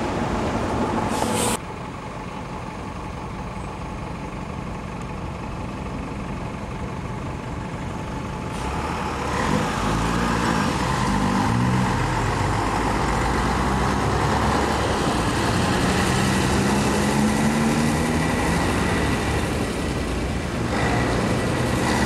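Road traffic, with a large coach bus driving past; the traffic grows louder about nine seconds in. Engine notes rise and fall as the vehicles pull away and accelerate.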